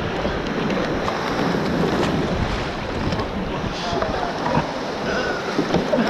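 Surf breaking and foaming over a shallow reef, washing around a bamboo raft, with wind buffeting the camera microphone.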